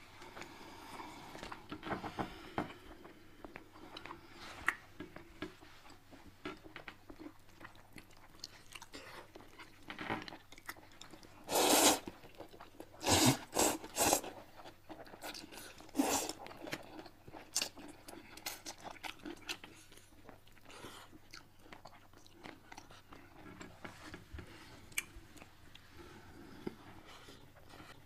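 Close-miked eating sounds: chewing and crunching on crispy deep-fried fish, with small bites and smacks throughout. About midway come a few loud, noisy bursts of noodles being slurped from chopsticks.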